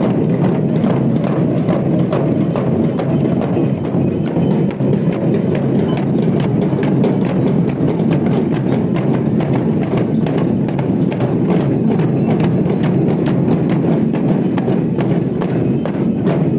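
Many barrel drums beaten with sticks by a procession of dancers: a dense, continuous clatter of overlapping beats.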